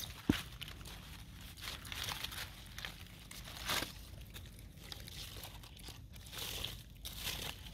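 Dry fallen leaves crinkling and rustling in short scattered bursts as long-tailed macaques move and pick through the leaf litter, with one sharp click about a third of a second in.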